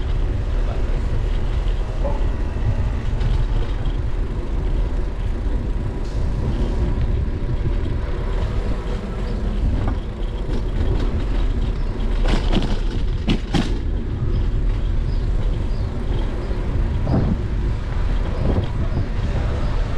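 Steady low rumble of wind buffeting a bicycle-mounted action camera's microphone while riding, with road and street noise under it. A few sharp clicks or rattles come about twelve to fourteen seconds in.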